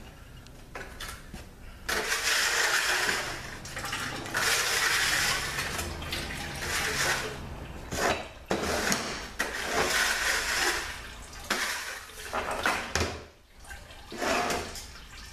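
Repeated bursts of hissing spray, each one to three seconds long, starting and stopping with short pauses between them.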